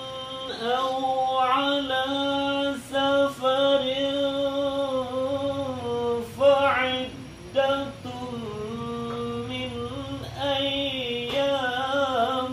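A single unaccompanied voice chanting Quran verses in the melodic tilawah style: long held notes with ornamented turns, broken by short pauses for breath.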